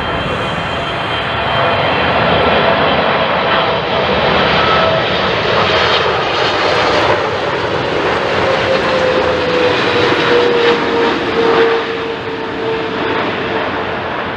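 Jet airliner flying past, its engines giving a loud rush with a whine that slides down in pitch as it goes by, easing off near the end.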